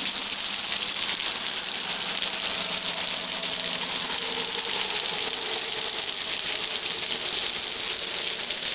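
Heavy rain falling on a wet street, a steady, even hiss with no pauses.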